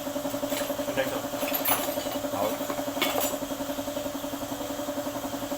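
Daihatsu Taft GT diesel engine idling with a steady, even throb, with a few light metallic clicks over it in the first three seconds.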